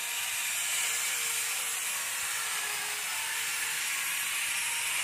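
Small handheld chainsaw running steadily as its chain cuts a tree branch: an even, high-pitched hiss with a faint steady hum underneath.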